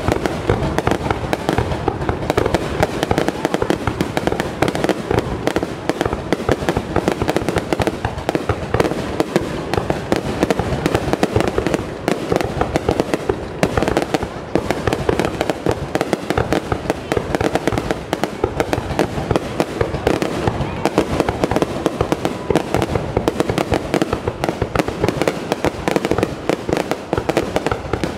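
Fireworks display going off close overhead: a dense, continuous barrage of bursts and crackling.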